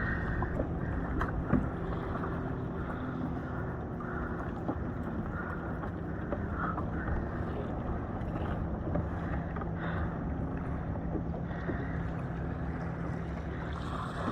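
Ocean water sloshing and lapping against a kayak's hull, with wind buffeting the microphone and a faint steady low hum underneath.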